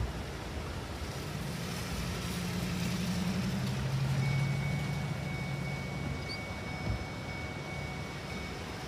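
A motor vehicle's engine running with a steady low hum that swells in the middle, over wind-like noise. A thin, steady high tone sounds from about four seconds in until near the end, and there is a single knock about seven seconds in.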